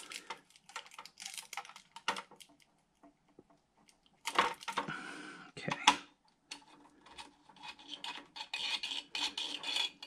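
Small screwdriver clicking on screws and a metal CPU heatsink with copper heat pipes clinking and scraping as it is worked loose and lifted off a computer logic board. Scattered light clicks and scrapes, with louder metallic clatters about four and a half and six seconds in.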